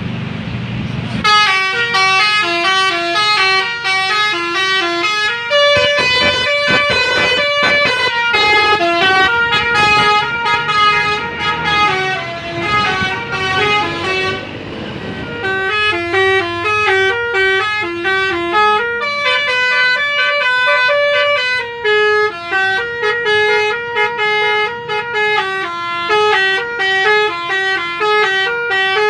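Bus 'basuri' telolet horn, a set of air horns sequenced to play melodies, sounding a long fast tune of quick stepped notes, starting about a second in over the low rumble of the idling bus engine, with a short break about fourteen seconds in.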